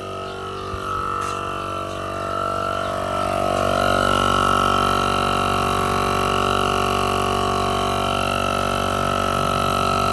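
A steady droning motor holding one pitch, getting louder about two to four seconds in and then running on evenly.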